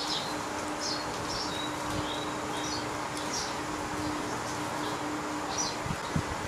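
Steady background hum and hiss with faint, short high chirps scattered through it and a few light knocks near the end.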